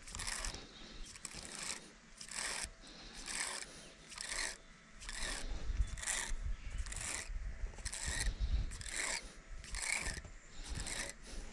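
Baitcasting reel being cranked in a slow, steady retrieve: a scratchy whir repeating with each turn of the handle, about one and a half times a second.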